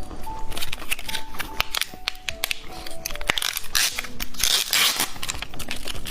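Background music with a light melody, over close-up crunching and crackling that thickens about four seconds in.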